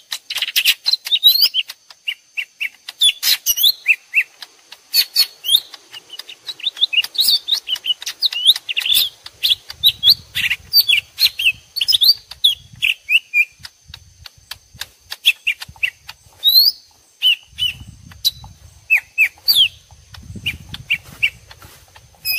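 Two cucak ijo mini (small green leafbirds) calling back and forth in a rapid, dense run of chirps, clicks and short quick-gliding whistles, as if fighting. This is a lure recording mixed for trapping the birds. Low rumbles come in twice, in the middle and near the end.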